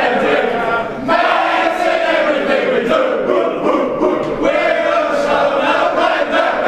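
A football team's players singing their club song together, loud and shouty, in phrases with short breaks between lines.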